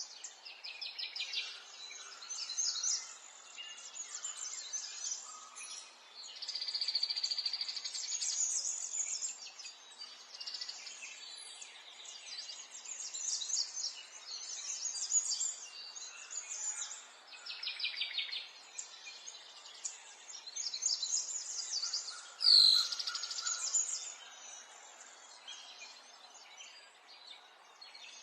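Several songbirds chirping and singing in rapid trills over a faint steady background, with one louder call about three-quarters of the way through.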